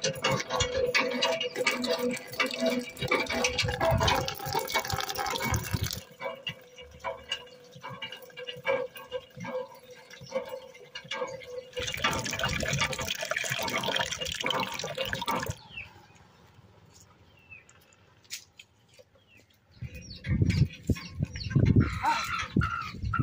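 Water from a hand pump pouring and splashing into a plastic bucket, in two long spells with patchier splashing between. A few low thuds near the end.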